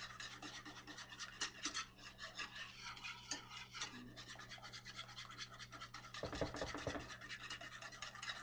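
A utensil stirring gravy in a skillet, scraping against the pan in a quick, steady run of scrapes, with a few low bumps about six seconds in.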